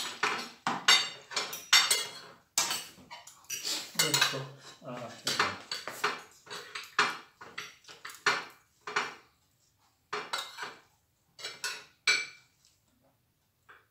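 Dishes and cutlery clattering as food is served: serving tongs clinking against a metal frying pan and plates. The clatter is dense and irregular, then thins to a few clinks near the end.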